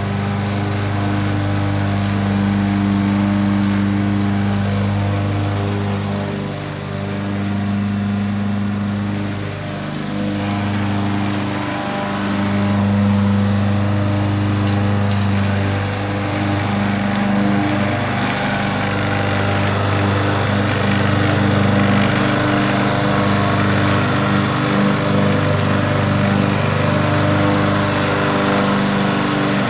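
Craftsman walk-behind gas lawn mower engine running steadily while mowing grass, its level dipping briefly twice.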